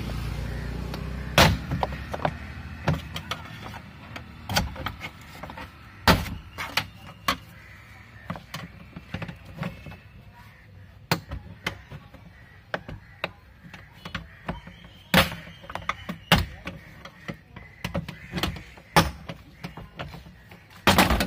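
Mahindra Scorpio's plastic door trim panel being worked off its clips by hand: a string of irregular sharp plastic clicks and knocks. The loudest come about a second in, around six seconds, around fifteen seconds and just before the end.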